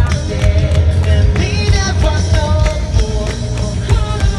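Live rock band playing: a steady drum beat and heavy bass under a singer's vocal line, heard from the crowd through the stadium sound system.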